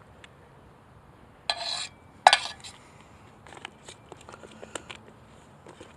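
Metal camp cookware being handled: a short scraping noise, a sharp clank a little after two seconds in, then a run of light clicks and taps.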